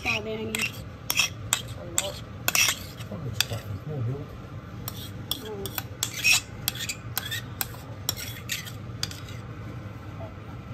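Metal spoon clinking and scraping against a ceramic bowl and mugs, with many sharp taps and clinks, as thick whipped coffee is scooped out and dropped onto hot milk.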